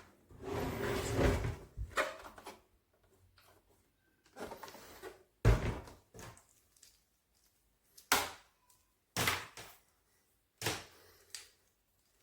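Household handling noises in a small room: a longer scraping rustle near the start, then several separate sharp knocks and clunks a second or more apart, like a small door or lid being opened and shut.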